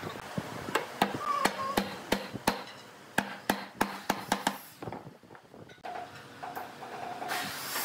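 Wooden mallet knocking a chair leg's tenon down into the mortise of a wooden base rail: a run of sharp wood-on-wood knocks, about three a second, stopping about five seconds in. Near the end a wooden rail scrapes briefly as it is slid into place on the bench.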